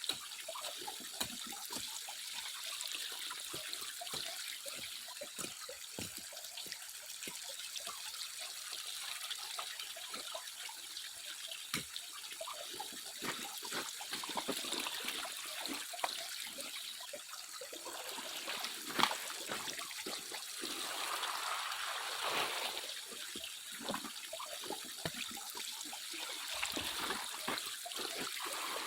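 Shallow running water trickling, with frequent small irregular splashes and clicks.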